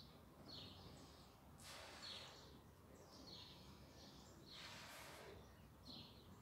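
A person blowing up a 16-inch latex balloon by mouth: two long breaths pushed into it, with short quick breaths drawn in between.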